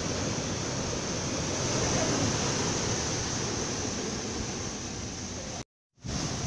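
Sea surf breaking and washing up onto a sandy beach: a steady rush of waves. The sound drops out completely for a moment near the end.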